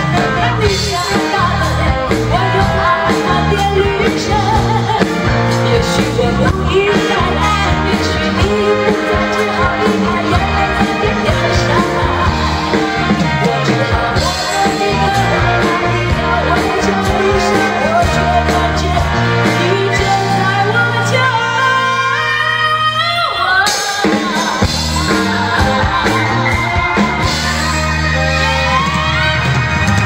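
Female singer singing a pop song into a microphone over a live band with drums and bass. Past the middle the band thins out to a rising run of notes, then the full band comes back in.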